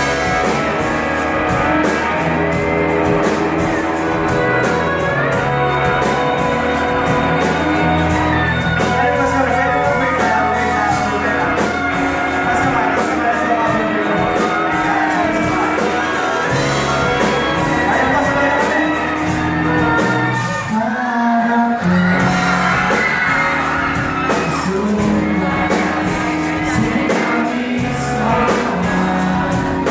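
Pop-rock band playing live through a PA: electric guitars, drum kit and a lead singer. The drums and cymbals drop out for a brief break about two-thirds through, then the full band comes back in.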